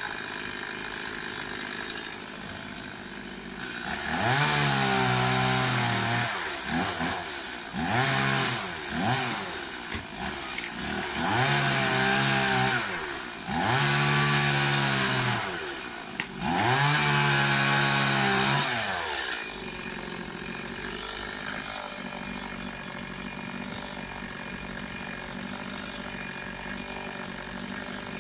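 Chainsaw cutting into the crown of a coconut palm. It runs up to full throttle in about five bursts of two to three seconds each, its pitch rising and sagging within each burst, then drops back to a steady idle for the last third.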